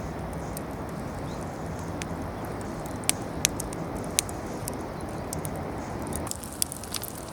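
Wood fire burning in a fire pit, a steady rushing hiss with sharp crackling pops, the three loudest a little after three seconds and around four seconds in. The hiss cuts off abruptly near the end, leaving scattered crackles.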